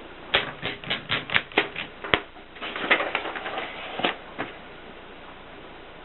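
Adler 7 manual typewriter being typed on: a run of sharp key strikes at about five a second, then a quicker flurry about three seconds in, and two last strokes near the four-second mark.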